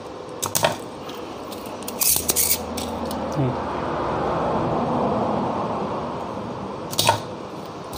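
Spring-loaded desoldering pump (solder sucker) at work on the pins of an amplifier IC: sharp plastic clicks and snaps as the plunger is pushed down and latched and then released to suck up melted solder. The clicks come about half a second in, in a quick cluster around two seconds, and once more near the end. A soft hiss swells up through the middle and fades.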